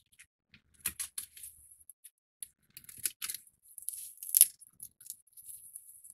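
Small puzzle-model pieces being handled and fitted: scattered light clicks and short crinkly rustles.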